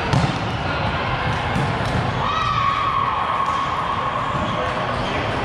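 Volleyball game in a gym: the ball thuds and bounces while players shout and call out. About two seconds in, a single held tone begins, slightly falling, and lasts nearly three seconds.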